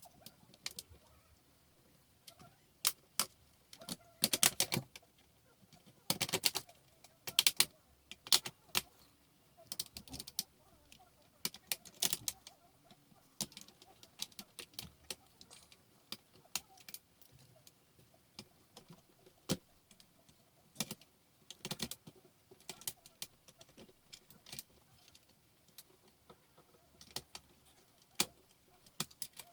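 Scattered sharp clicks and taps of small hard parts being handled while a laptop is taken apart, with a few quick bursts of clicking clustered together early on and near the middle.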